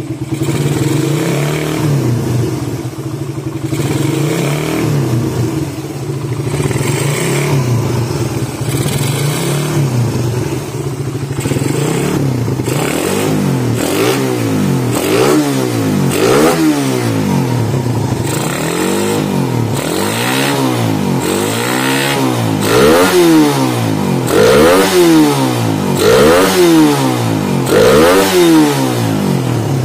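Suzuki Satria FU 150's single-cylinder four-stroke engine, running on a PE28 carburetor and BRT CDI through its stock muffler. It idles steadily at first, then from about twelve seconds in is blipped by hand in repeated quick revs, one roughly every second and a half, each rising and falling back. The later revs are the loudest.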